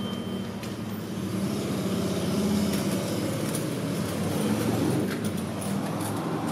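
Steady low mechanical hum of background noise in a busy restaurant kitchen, growing a little louder through the middle, with a few light clicks.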